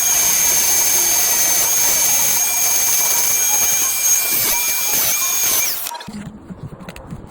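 Angle grinder cutting porcelain paving, a steady high whine over a grinding hiss. It is switched off about six seconds in, the whine dropping away, and a few light knocks follow.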